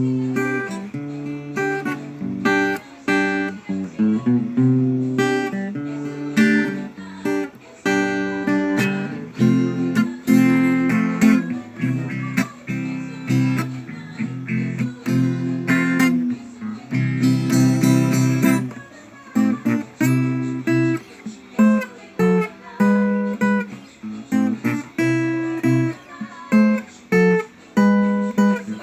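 Tagima thin-neck electro-acoustic guitar played solo: chords picked and strummed one after another, each left to ring, among them dissonant voicings and octave lines.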